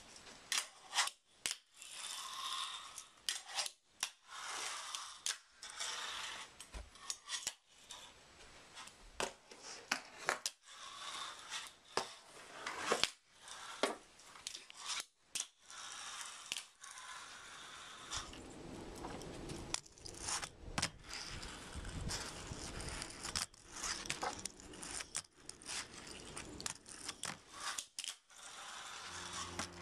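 Fingerboard tricks on wooden ramps and boxes: small wheels rolling and scraping, with many sharp clacks of the little deck popping and landing on wood. A low steady rumble joins in past the midpoint.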